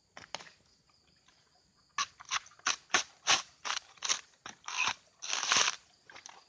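Coconut husk being torn off on a husking spike: a run of sharp cracking and ripping strokes starting about two seconds in, with a longer tearing rip shortly before the end.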